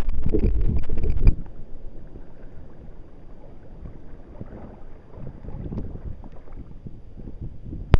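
Wind buffeting the microphone and water lapping around a kayak, opening with a loud low rumble that cuts off sharply about a second in, then quieter. A single sharp click comes at the very end.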